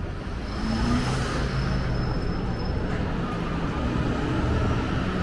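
City street traffic: a motor vehicle runs past. A thin, high, steady whine is heard from about half a second in to about three seconds in.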